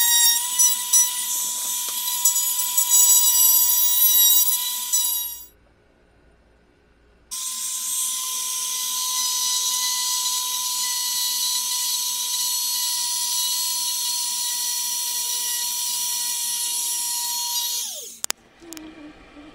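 Bosch Colt compact router running with a steady high whine while routing the edges of wooden cut-outs. It drops out for about two seconds a third of the way through, comes back at full speed, and near the end is switched off and winds down with a falling pitch.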